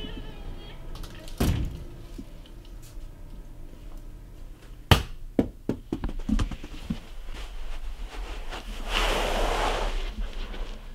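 A few dull thumps and knocks. The loudest is a sharp knock about five seconds in, followed quickly by a run of lighter knocks. Near the end comes a short rush of breathy noise about a second long.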